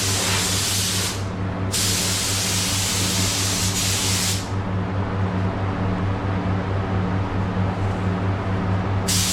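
Paint spray gun hissing as it sprays, stopping briefly about a second in, then again for about four and a half seconds before spraying resumes near the end, over a steady low hum.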